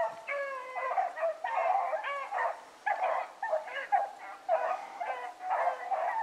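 A pack of rabbit hounds baying as they run a rabbit's scent trail, several dogs' voices at different pitches overlapping in a continuous chorus of bays.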